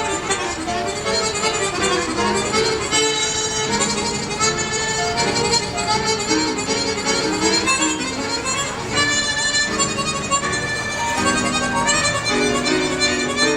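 Chromatic harmonica playing a tune, with notes changing steadily and sometimes sounding several at once.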